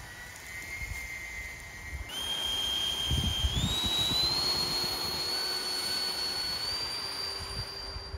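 Electric ducted fan of an RC hydroplane running with a high whine over a rush of air, its pitch climbing in steps as the throttle is opened, about two seconds in, again at three and a half, and again near the end.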